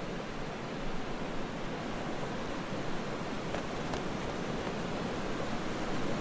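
Steady, even hiss of background noise with no speech or music.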